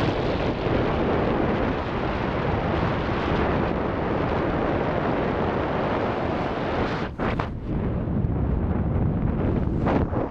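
Steady rush of wind over the microphone during paraglider flight, dropping away briefly about seven seconds in and again near the end.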